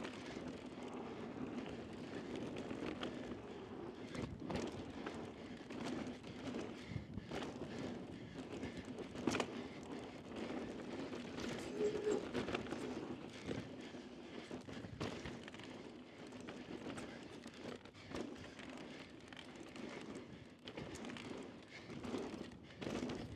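Mountain bike running fast down a dry dirt trail: a steady rush of tyres on loose dirt, broken by frequent knocks and rattles as the bike goes over bumps.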